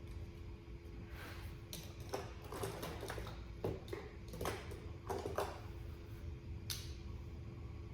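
Pen scribbling on paper: a series of short, scratchy strokes as pens are tested, over a steady low hum.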